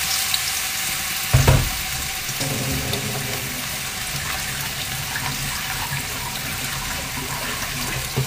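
Beef pieces sizzling steadily in hot oil in a wok, just after going in. A single thump about a second and a half in.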